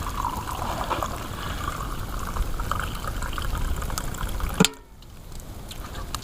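Hot water being poured into a cup, trickling and filling. About four and a half seconds in there is a sharp knock, and the sound drops off suddenly.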